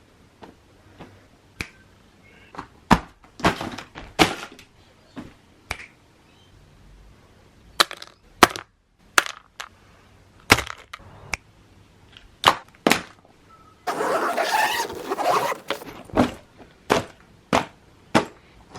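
Stunt scooter street riding: a string of sharp clacks and knocks of the deck and wheels hitting concrete, with a rough scraping stretch of about a second and a half past the middle.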